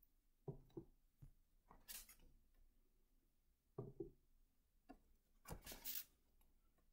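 Paper sheets being handled and flipped: a few short, faint rustles and taps, with a longer rustle near the end and near silence between.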